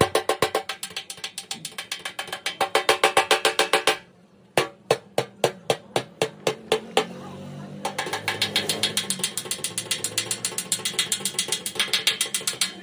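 Rapid, steady tapping of a hammer on car body sheet metal, each strike ringing. The tapping breaks off about four seconds in, comes back as slower single taps, then turns rapid again for the rest.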